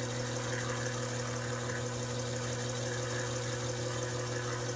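Taig micro lathe motor and spindle running steadily, a constant hum with a few higher steady tones, as the chuck spins. It is running a little faster than the operator wants for this ball-end cut in mild steel.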